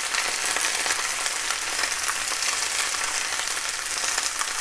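Baby bok choy searing face down in hot oil in a skillet on high heat: a steady sizzle with fine crackling.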